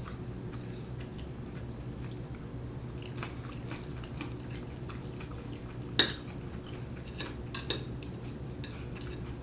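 Mukbang eating sounds: chewing, with scattered clicks of cutlery on a plate. One sharp clink about six seconds in and two lighter ones soon after, over a steady low hum.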